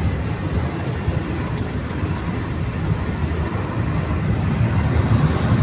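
Steady low rumble of a car driving along a highway, its engine and tyres heard from inside the cabin.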